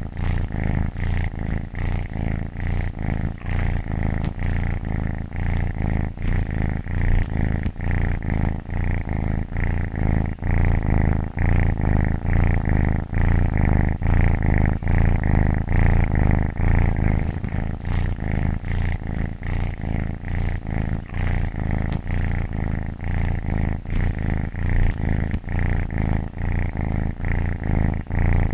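Domestic cat purring continuously at close range, a low rumble that swells and dips in a regular rhythm.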